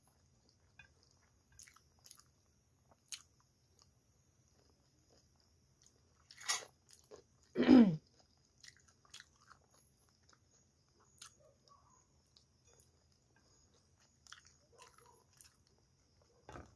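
Close-up chewing of soft creamy spinach pasta, with small wet mouth clicks. Two louder mouth sounds come midway; the second is the loudest and short, falling in pitch.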